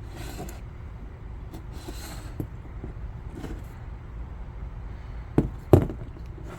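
Handling noise: faint rustling and two sharp knocks a third of a second apart near the end, over a steady low background rumble.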